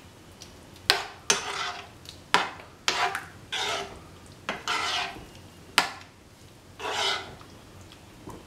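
A spoon stirring prawn curry with freshly added coconut milk in a pan, scraping around the pan in strokes about once a second, with a few sharp knocks against the pan.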